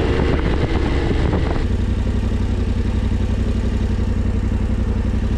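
Yamaha Ténéré 700's parallel-twin engine running, with wind rush on the microphone that falls away about a second and a half in, leaving the engine running steadily at low revs, as at idle.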